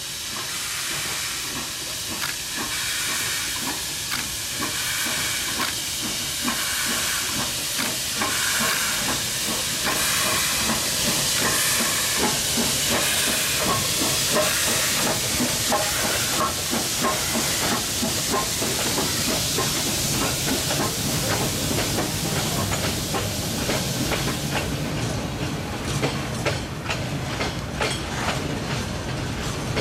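Myanmar Railways YD-class 2-8-2 steam locomotive working a train past, its exhaust beats and steam hiss growing louder as it nears and passes. Near the end the wagons follow, their wheels clicking over the rail joints.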